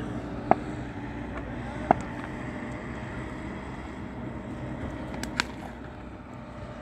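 Steady low hum with a few sharp knocks. The last, cleanest knock comes about five and a half seconds in: a cricket bat striking the ball as the batsman hits his shot.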